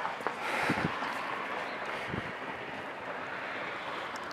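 Steady background hiss with a few faint clicks.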